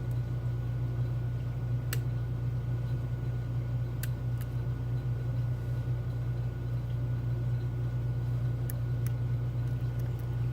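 A steady low hum, with a few faint, sharp clicks of lock picks and tension tool working the pins of a Medeco Keymark lock.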